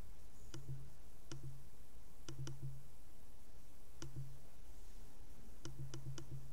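Steady low electrical hum and hiss with irregular small clicks, some single and some in quick runs of two to four, each trailed by a short low buzz.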